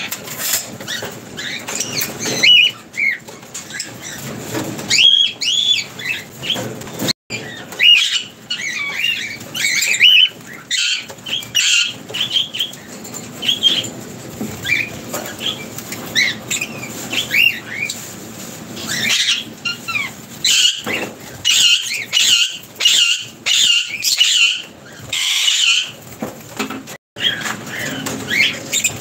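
A flock of lovebirds, among them yellow-collared masked lovebirds, chattering in an aviary: a busy stream of short, high-pitched chirps and squeaks overlapping one another, with wings flapping now and then as birds fly on and off the perch.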